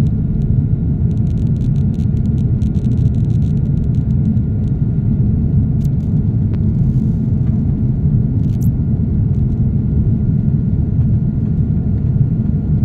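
Airliner cabin noise in flight after takeoff: the jet engines and airflow make a steady, loud, low rumble, with a faint thin whine above it and a few faint clicks.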